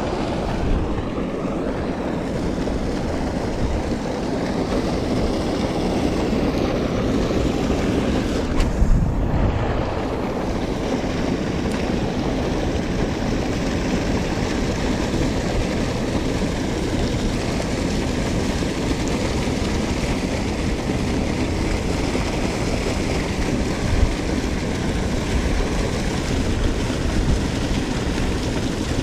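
Steady wind rumble on the microphone over sea waves washing against rocks.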